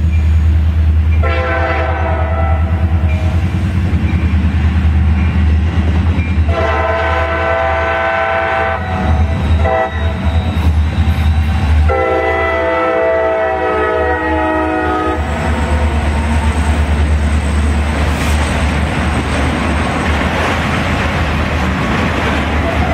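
A CSX SD40-series diesel locomotive sounds its multi-note horn: two long blasts, a brief short one, then a final long blast, over the steady low rumble of its EMD two-stroke diesel as it passes close by. Once the horn stops, the rolling rumble and clatter of autorack freight cars going by takes over.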